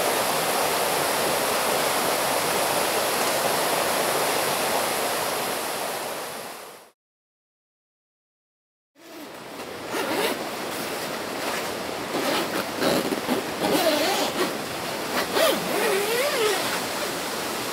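A stream rushing steadily, fading out about seven seconds in. After two seconds of silence it returns quieter, with scattered clicks and knocks and a few short wavering pitched sounds.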